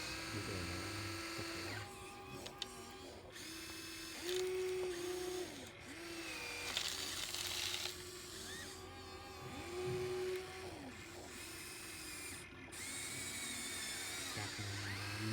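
Small electric motors and hydraulic pumps of radio-controlled model excavators whining, the pitch gliding up and down as they start and stop. A short hissing scrape about seven seconds in.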